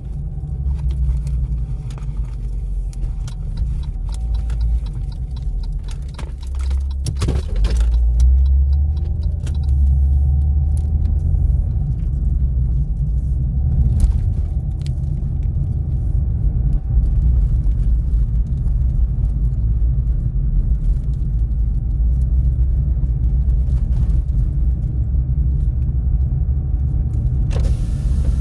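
A car being driven: a steady low rumble of engine and tyres, with a few brief clicks and rattles, the strongest of them about seven seconds in.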